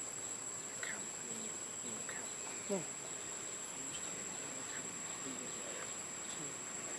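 Insects in the forest droning with a steady, high-pitched whine. A few faint chirps sound through it, and a short falling sound comes about three seconds in.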